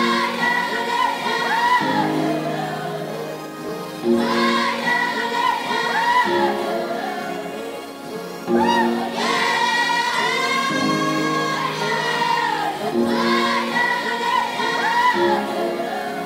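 Background music: a slow song with a sung melody over held chords, in phrases of about four seconds and without a drum beat.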